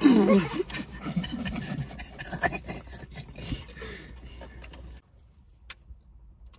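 Several young men laughing together, loudest at the start and dying down over a few seconds. The sound cuts off suddenly about five seconds in, leaving only faint background.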